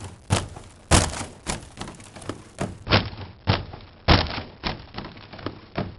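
Footsteps crunching through dry leaves, one step about every half second, some steps heavier than others. About three seconds in the crunching turns duller, as if a second take were spliced on.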